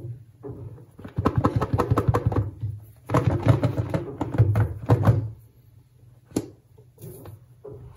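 Hands gripping, rubbing and sliding a stiff cardboard OnePlus 8T phone box: several seconds of dense scraping and tapping on the card, then a single sharp click about six seconds in.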